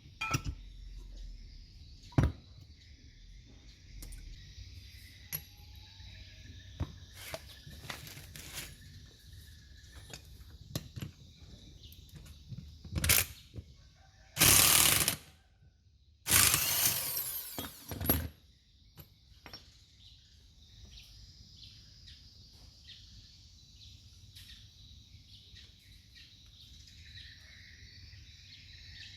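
Hand-tool work on a car alternator: scattered metal clicks and knocks, with two loud bursts of noise about halfway through, one about a second long and the next about two seconds long. A steady faint high chirring of insects runs underneath.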